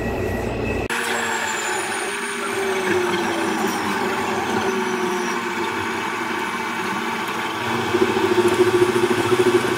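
Taipei Metro Circular Line train running on elevated track, heard from inside the front car: steady running noise with a motor whine that falls slowly in pitch. Near the end a louder, pulsing tone comes in as the train enters a curve.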